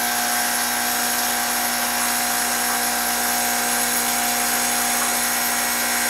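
Ascaso Dream Up V2 espresso machine's vibratory pump running steadily while a steady stream of water hisses out of the open steam wand. It is flushing the steam out of the boiler to bring the temperature down after steaming milk, before espresso can be made.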